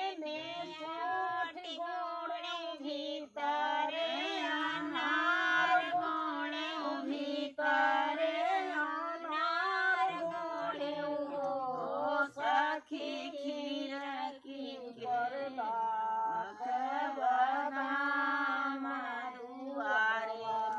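Women singing a sohar, a traditional North Indian folk song for a child's birth, in a slow, drawn-out melody with long held notes and brief pauses for breath.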